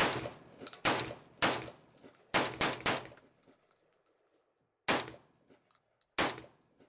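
Saiga 12 semi-automatic 12-gauge shotgun firing about eight shots in an uneven string: quick shots in the first three seconds, a pause of nearly two seconds, then two more spaced shots, each with a short echo.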